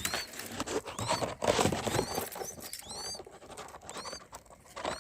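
Baby birds in a nest cheeping: about a dozen short, thin, high-pitched peeps, some in quick pairs, over rustling.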